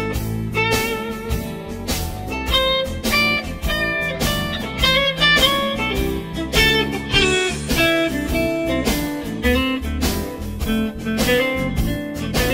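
Background music: a blues-style guitar tune of plucked notes over a steady beat.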